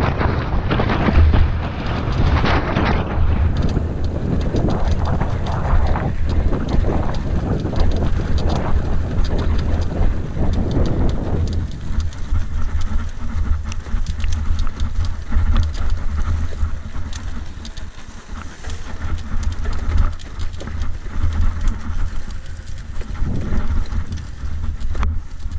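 Mountain bike descending a rough dirt trail, recorded by a camera riding along: wind buffets the microphone over a constant low rumble, with a dense rattle of clicks and knocks from the tyres and bike over the bumpy ground. The wind noise is heavier for roughly the first half, then eases.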